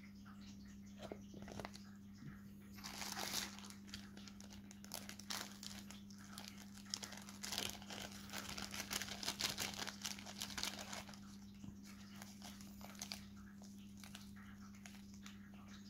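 Plastic bubble wrap and paper crinkling and rustling as they are handled. The crackling is densest from about three to eleven seconds in, over a faint steady low hum.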